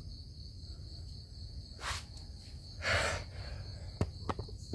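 Steady high-pitched insect chirring over a low rumble. Two short rustles come around the middle, and a couple of sharp clicks come near the end.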